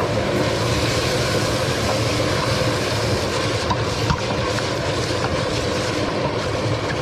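Salsiccia sausages sizzling steadily in hot olive oil with onions in a stainless steel pot, stirred with a wooden spoon, with a few light knocks of the spoon against the pot around the middle.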